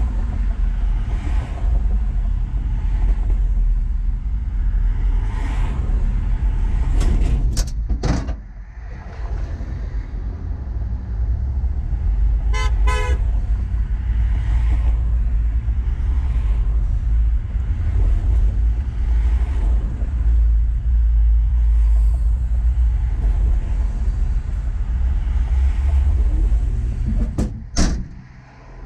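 Cars passing close by on a highway over a steady low rumble, with a couple of louder whooshes as vehicles go by. About halfway through, a car horn sounds a quick series of short toots.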